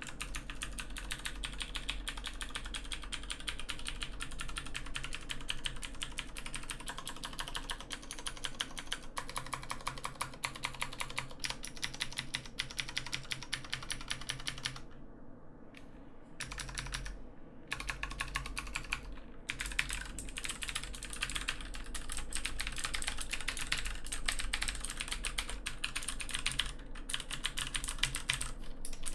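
Clicky Cherry MX Blue switches on a new Filco Majestouch 2 mechanical keyboard, struck in rapid, random key presses with a few short pauses. The switches are fresh and unworn.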